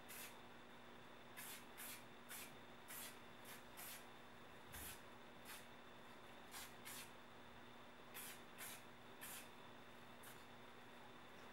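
Aerosol spray-paint can hissing faintly in about a dozen short, irregularly spaced bursts, misting light coats of paint through a camouflage stencil.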